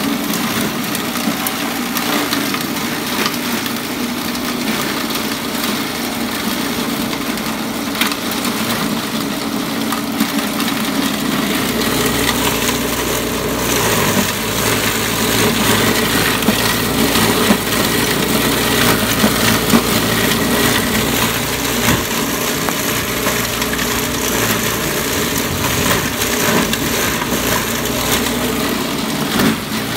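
Small electric grass chopper running steadily, its motor and cutting rotor humming with a rough whirring rush over it as it cuts grass into fine bits. The sound fills out lower and a little louder about halfway through.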